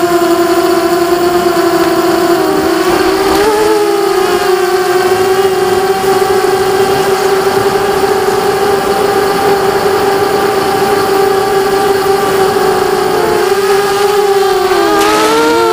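FPV racing quadcopter's brushless motors and propellers whining steadily close to the onboard camera. The pitch dips and swings back up briefly a few times as the throttle changes.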